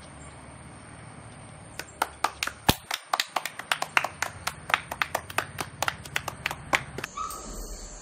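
Hand clapping: a short round of sharp, separate claps, about five or six a second, starting about two seconds in and stopping about seven seconds in.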